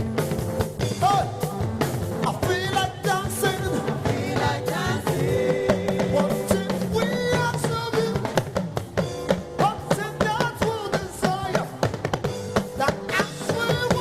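Gospel band music with a drum kit keeping a steady beat and singing over it.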